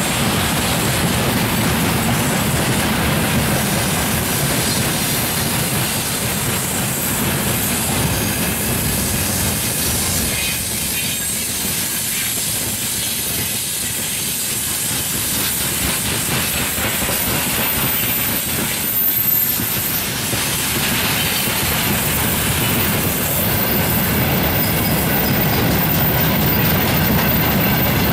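Freight wagons of a passing train rolling by: a steady rumble and clatter of their wheels on the rails.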